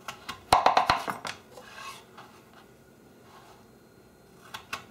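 A chef's knife cutting through a raw peeled sweet potato and knocking on a plastic cutting board: a quick run of sharp knocks about half a second in, then a couple more near the end.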